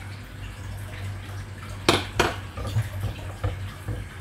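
Two sharp clinks of a utensil against a cooking pot about two seconds in, with a few lighter knocks after, over a steady low hum.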